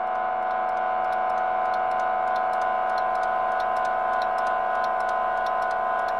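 Fast, even clock-like ticking over a steady held drone chord: the eerie underscore of a horror film.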